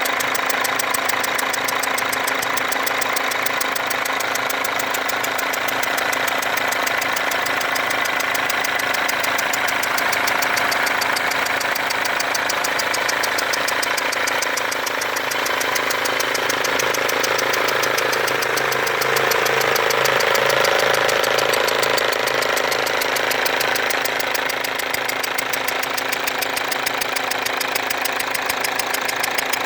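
Mercedes W204 C-Class diesel engine idling with a loud, rapid ticking and whistling at a leaking injector, the sign of combustion gas blowing past the injector's worn seal.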